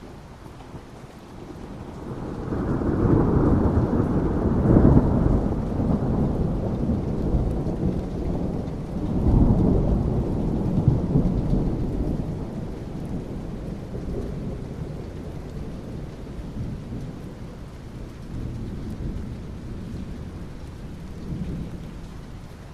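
Rolling thunder over steady rain. The deep rumble builds about two seconds in and swells again around nine seconds, then slowly fades back to the rain.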